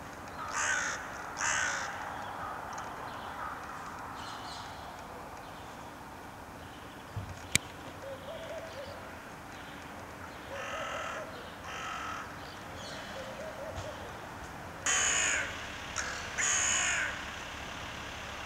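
Hooded crows cawing, single harsh caws spaced out: two near the start, a few softer ones in the middle, and the loudest pair near the end. A single sharp click about seven and a half seconds in.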